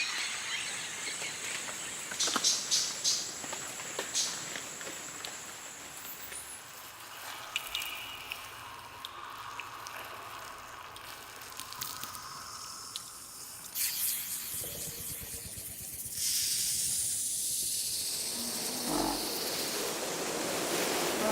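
Tropical savannah and jungle ambience recordings cut one after another: dense insect and frog choruses with a high steady hiss and a few short calls and clicks. The soundscape changes abruptly several times, ending in an even, louder hiss.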